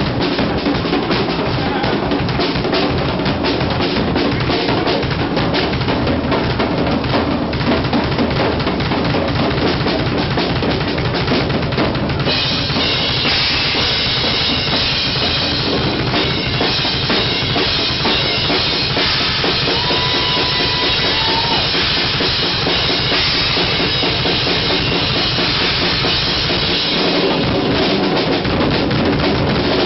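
Drum solo on a full rock drum kit: fast, continuous bass drum, snare and tom strokes. About twelve seconds in, cymbals come in heavily and keep crashing until shortly before the end.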